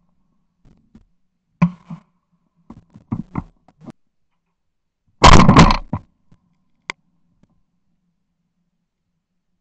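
A shotgun shot about five seconds in, very loud and clipping, heard right at the gun, with a short tail. Several fainter sharp cracks and knocks come before it, and a single click follows about a second later.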